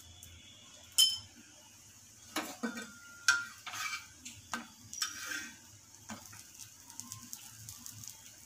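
A metal spatula knocking and scraping on a flat griddle (tawa) as slices of bread are pushed around and turned in a little oil, with a handful of sharp clinks spread through and a faint sizzle underneath.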